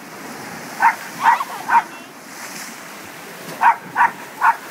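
Small dog barking from a cliff top in two quick runs of three barks each, over the steady wash of surf breaking on the rocks below.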